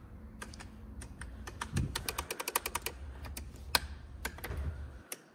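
Rocker switches on a Mazda Miata's center console clicked over and over in quick, uneven runs, with no motor running in response: the switch being tested does nothing.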